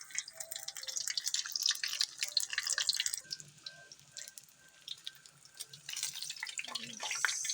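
Pork leg deep-frying for crispy pata, the hot oil crackling and popping irregularly, thinning out in the middle and busier again near the end.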